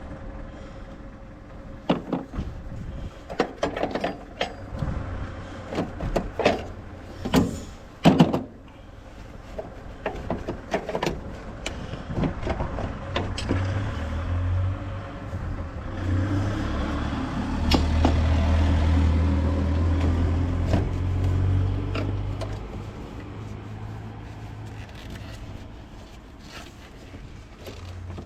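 Several sharp clicks and knocks in the first eight seconds, like tool work on a car. Then a low vehicle engine hum rises, holds for several seconds and fades away.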